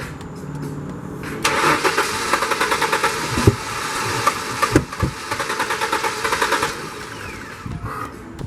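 Ford Mustang's starter cranking the engine for about five seconds in an even, rhythmic churn, then stopping. The engine turns over but does not fire: a crank-no-start.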